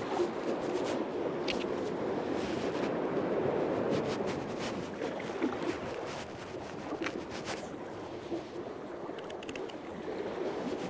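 Sea water sloshing and lapping against the pier, a steady rush, with scattered small clicks and taps from fish being cleaned by hand.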